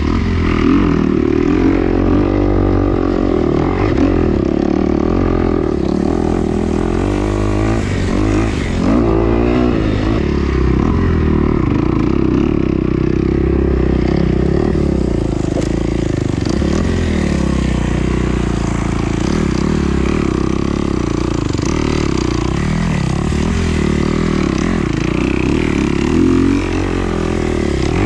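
Dirt bike engine running steadily while being ridden, its pitch wavering up and down with the throttle.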